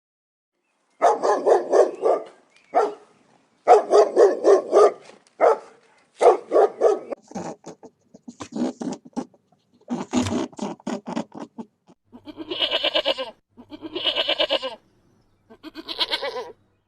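Animal calls in a series of short bouts, each followed by a brief silence. The character of the calls changes twice, so several different animals are heard one after another.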